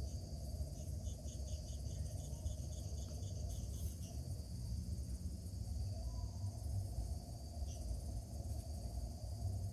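Crickets chirping at night: a steady high trill, with a run of evenly spaced chirps, about five a second, in the first four seconds. A low rumble runs underneath throughout.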